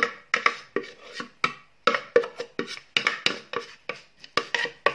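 A utensil scraping a sticky minced-meat mixture out of a clear bowl into a white enamel pot: quick, irregular scraping and knocking strokes, about three a second.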